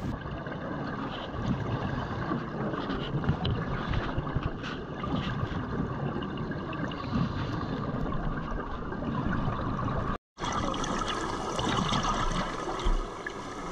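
Muffled underwater noise: a steady rushing wash with scattered faint clicks. It cuts out for an instant about ten seconds in.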